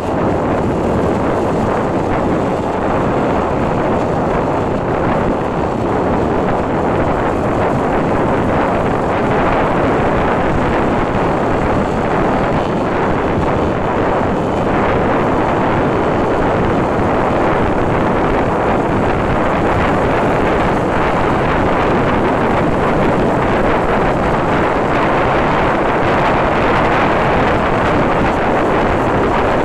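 Steady, loud rush of wind buffeting the microphone while riding a motorcycle along a highway, with road and vehicle noise underneath.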